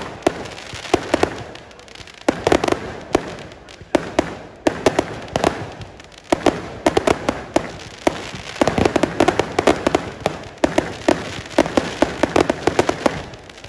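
Aerial fireworks bursting overhead: sharp bangs and crackling in clusters with brief lulls between. A long, dense run of rapid bangs and crackles fills most of the second half.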